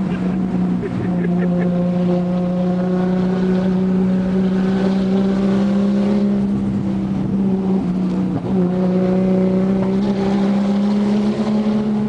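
Nissan Skyline R31 with a side-pipe exhaust, heard from inside the cabin on a road run: the exhaust holds a steady engine note at an even cruising speed, with a brief dip in pitch about eight and a half seconds in.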